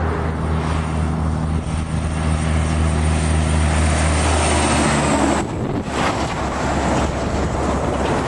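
Two heavy diesel trucks hauling an oversize load approach and pass close by: a steady low engine drone for about five seconds, then a rush of tyre and air noise as the long trailer goes past.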